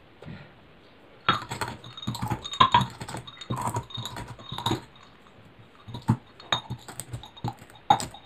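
Mustard seeds being crushed by hand: a quick run of knocking and grinding strokes, then a few single knocks.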